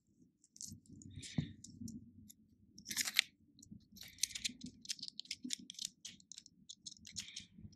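Small clicks, taps and scrapes of a line-filled spool being handled and pushed into the open frame of a baitcasting reel. There is a louder run of clicks about three seconds in and again a second or so later.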